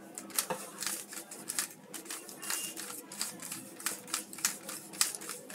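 Plastic 3x3 speed cube clicking as two of its layers are turned by finger, one up and one forward, again and again, about three clicks a second.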